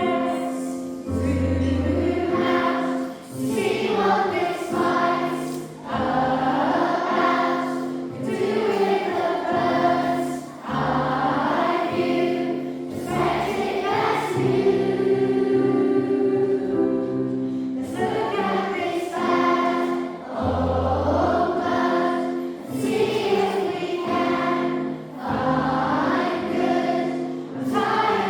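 A massed primary school children's choir singing a song, with short low bass notes sounding beneath the voices now and then.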